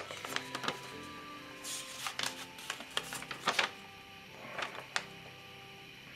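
A folded paper instruction sheet being unfolded and handled, giving a quick run of crisp rustles and crackles that thin out after about four seconds. Soft background music plays underneath.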